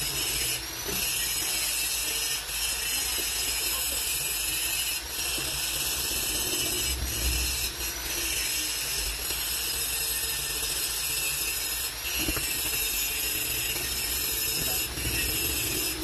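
Steady hissing noise, with a few faint light knocks every couple of seconds.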